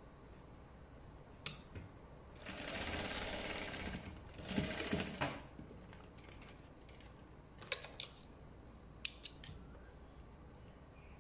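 Industrial sewing machine stitching in two short runs, about a second and a half and then just under a second, the second one louder. A few sharp scissor snips follow as the thread ends are trimmed.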